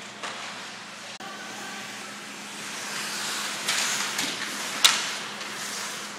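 Hockey players' skates scraping and sticks knocking in a scramble around the goal, over the hollow hum of an indoor rink. A single sharp crack a little under five seconds in is the loudest sound.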